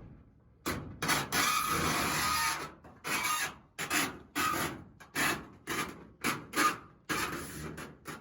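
Vent pipe scraping against wood as it is worked down through the hole cut in the roof. About a dozen rough rubbing strokes, with one longer stroke about a second in, ending in a snug fit.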